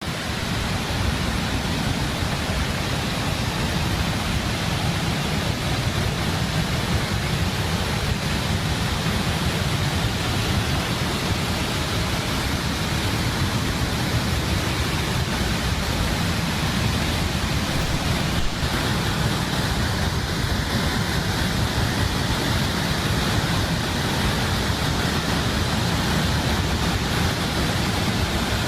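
Steady rushing of floodwater pouring through the open spillways of Tarbela Dam, an even, unbroken roar of water.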